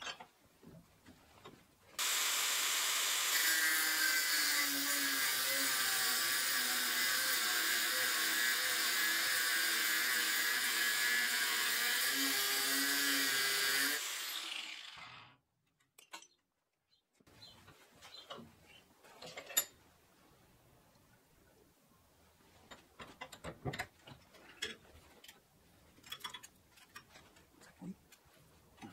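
An electric power tool working on steel runs steadily for about twelve seconds, then spins down with a falling pitch. Scattered light clicks and knocks follow.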